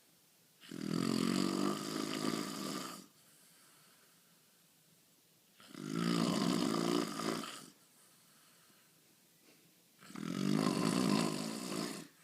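A man snoring in his sleep: three long snores, each about two seconds, coming about every five seconds, with near silence between them.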